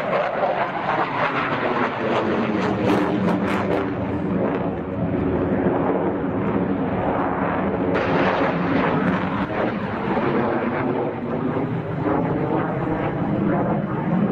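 JF-17 Thunder fighter's single Klimov RD-93 turbofan running overhead during a display flight: a loud, steady jet roar with a wavering tone that slowly shifts in pitch as the jet moves across the sky. The sound changes abruptly about eight seconds in.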